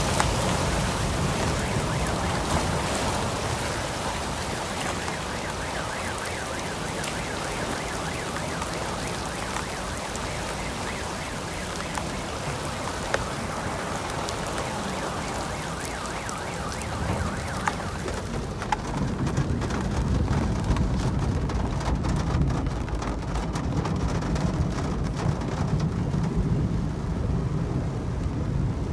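Heavy rain beating on a car, heard from inside the cabin as a dense hiss with many small drop hits. Past the halfway point the hiss thins and a deeper rumble grows louder.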